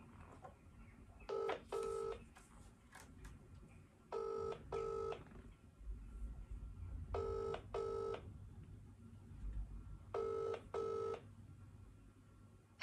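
Telephone ringback tone playing through a phone's speaker while an outgoing call rings unanswered. Four double rings (two short rings, then a pause) about three seconds apart, the British ringing cadence.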